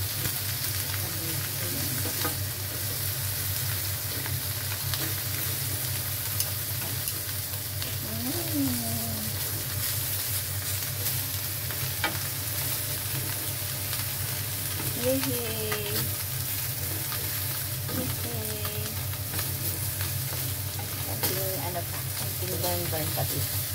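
Shell-on prawns sizzling on a hot ridged grill pan, a steady hiss over a steady low hum, with a few sharp clicks of metal tongs against the pan as they are turned.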